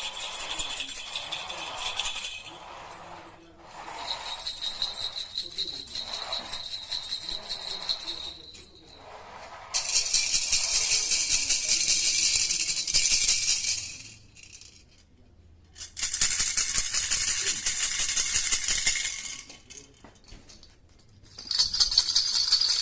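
Baby toy rattle shaken fast in about five bursts of two to four seconds each, with short pauses between them; each burst has a somewhat different pitch to its rattling.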